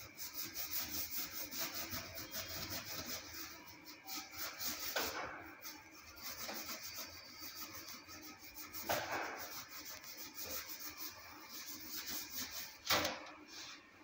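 Scrubbing inside a commercial convection oven's cavity: quick repeated rubbing strokes against the oven's inner walls, with three longer, louder scrapes about five, nine and thirteen seconds in.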